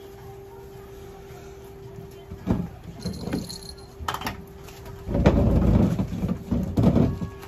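Rustling and knocking handling noises as a long-haired cat is held and groomed on a vet's exam table, loudest as a rough rumbling scuffle just past the middle, over a steady electrical hum.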